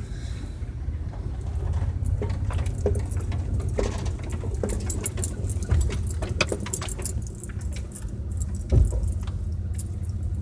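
A vehicle's engine idling with a steady low rumble. Over it come many small clicks and rattles, bunched in the middle.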